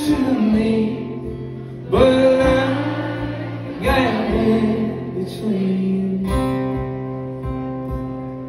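A man singing live with his own acoustic guitar strummed steadily underneath. The sung phrases start about every two seconds, each ending on a long held note.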